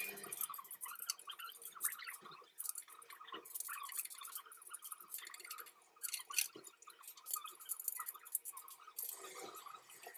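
Faint, irregular small clicks and scratches of bolts, washers and an Allen key being handled and fitted into the holes of a dining table's leg frame.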